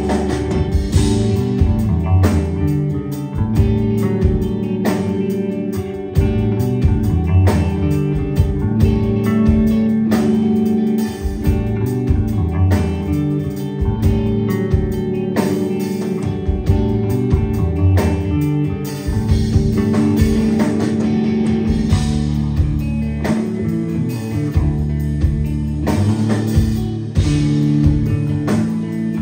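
A live rock band plays an instrumental passage on bass guitar, electric guitar and drum kit, with the drums striking a steady beat.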